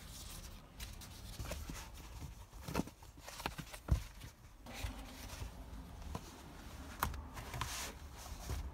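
SOOMLOOM folding egg-crate foam mat being handled and laid out on a car's floor: scattered rustles, creaks and soft knocks, the sharpest knock about four seconds in.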